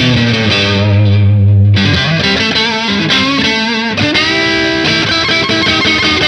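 Japanese Squier electric guitar played through a Demonfx Prince of Sound overdrive pedal, a clone of the Analog Man Prince of Tone, with the pedal's tone knob turned up. It gives a driven, glassy sound as chords and single notes ring on without a break.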